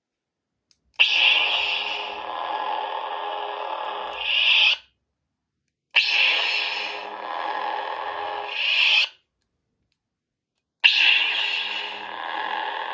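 Lightsaber replica's sound board playing the "Vindicate" sound font's power-on and power-off sounds. Three ignitions, each a sudden blast that settles into a steady hum. The first two end in a swelling retraction that cuts off, and the third ignition hums on.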